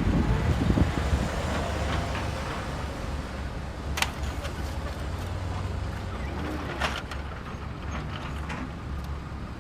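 Heavy vehicle engine running, a steady low rumble, with two sharp knocks about four and seven seconds in.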